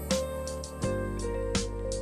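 Background music with sustained notes and a steady beat.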